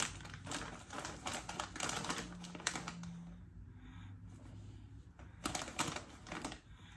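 Crinkling and crackling of a foil-lined plastic snack bag as a hand rummages inside it for puffs. It comes in quick clusters over the first three seconds, goes quieter, then comes in another burst about five and a half seconds in.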